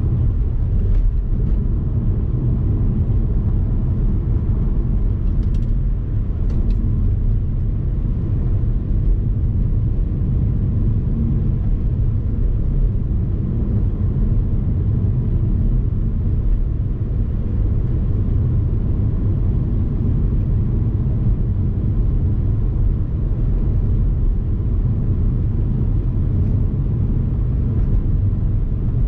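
Steady low rumble of a vehicle driving along a winding road: road and wind noise, with a few faint clicks about one and six seconds in.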